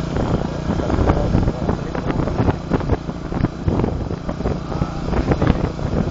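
Motorcycle engine running steadily while riding over a bumpy dirt road, with frequent sharp rattles and knocks and wind on the microphone.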